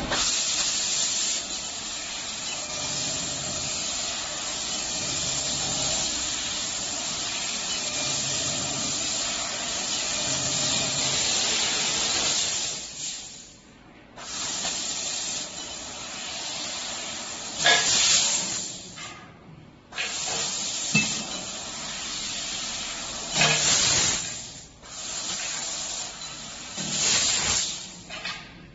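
Fiber laser tube cutting machine's cutting head hissing steadily with its high-pressure assist-gas jet as it cuts metal tube. After about twelve seconds the hiss stops and starts again several times between cuts, with short louder blasts as the gas comes back on.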